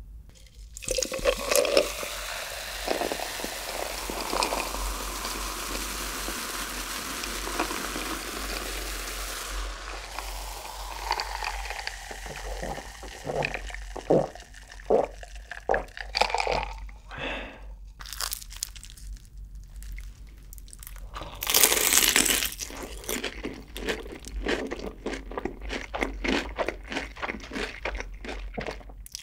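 Cola fizzing in a glass for several seconds, then drunk in a few gulps. Later comes a loud crunchy bite into crispy fried chicken with cheese sauce, then a run of crunchy chewing close to the microphone.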